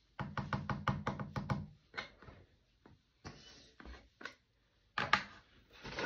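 A quick run of about nine light knocks in a second and a half, then scattered clicks and short rustles: makeup containers and tools being handled and tapped.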